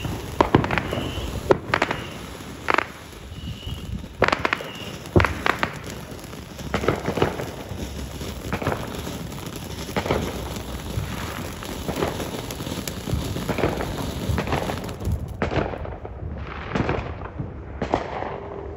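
Consumer fountain firework spraying with a hiss and irregular sharp crackles and pops. The hiss dies away about fifteen seconds in, and a few last pops follow.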